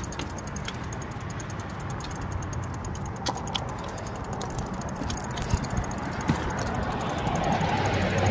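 Bicycle rolling along a street, its parts giving small ticks and rattles, while a car drives up on the road and grows louder over the last couple of seconds.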